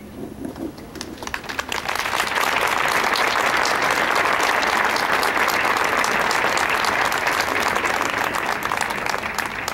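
Audience applauding: a few scattered claps about a second in swell into full, steady applause, which begins to thin out near the end.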